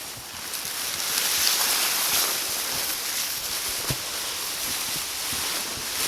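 Steady rustling hiss of people walking through dry field vegetation, with a few soft footfalls.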